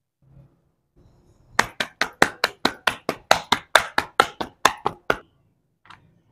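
Hands slapping roti dough back and forth between the palms to flatten it into a round: about sixteen quick, sharp pats, some four to five a second, then a single fainter tap.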